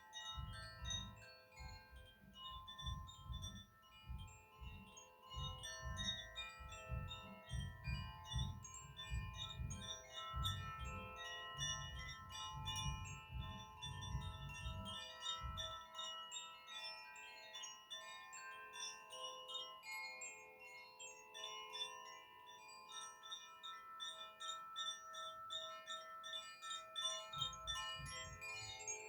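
Koshi chimes being played: a dense, continuous tinkling of many overlapping ringing tones. An irregular low rumble runs underneath for the first half, stops, and returns briefly near the end.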